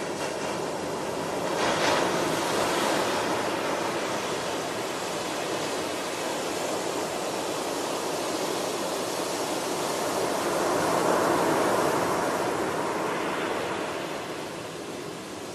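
Ocean surf: waves breaking and washing up the beach in a steady rush. The rush swells about two seconds in and again around eleven seconds, then eases near the end.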